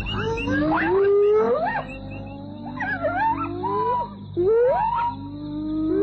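Hyenas and jackals calling at night: a mournful chorus of long cries that glide upward in pitch, several overlapping, a new one starting every second or two.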